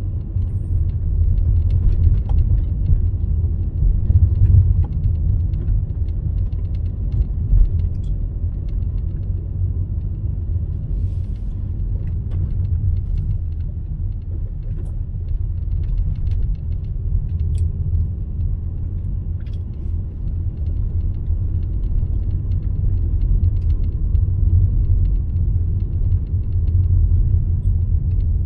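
Steady low rumble of road and engine noise heard from inside a moving car's cabin, with a few faint ticks and rattles scattered through it.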